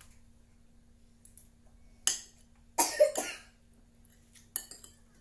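A person coughing three times in quick succession, starting about two seconds in, followed near the end by a few light clicks of cutlery on a plate.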